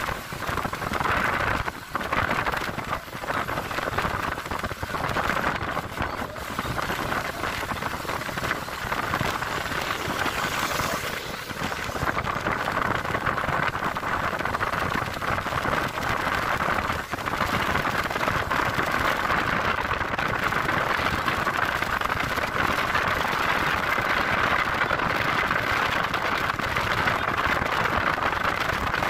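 Steady rushing wind and road noise from a moving vehicle, heard from inside it, with a few uneven dips in the first few seconds before it settles.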